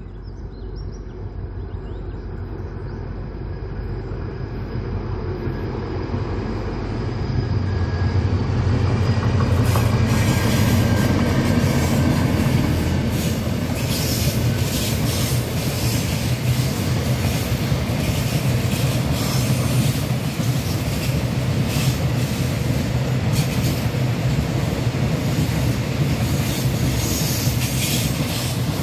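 Diesel locomotive hauling a container freight train. Its engine drone grows steadily louder over the first several seconds as it approaches. Then the long string of container wagons rolls past with a steady rumble and repeated wheel clatter.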